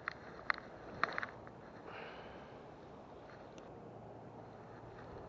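A few sharp clicks and taps in the first second or so, over a steady low background hiss.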